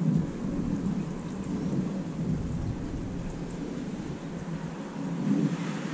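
Steady rain, with a deep rumble that sets in at the start and fades out over the first few seconds.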